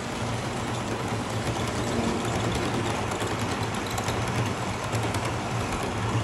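Miniature model train running on layout track: a steady motor hum with wheel rumble and faint irregular clicking from the rails.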